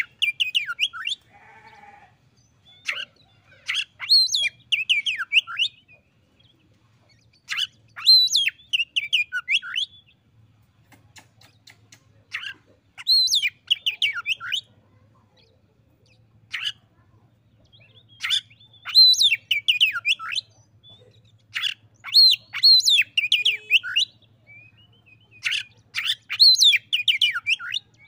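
Oriental magpie-robin singing its challenge song. It sings bursts of loud, sweeping whistled notes, each lasting a second or two, repeated about every four seconds with short pauses between.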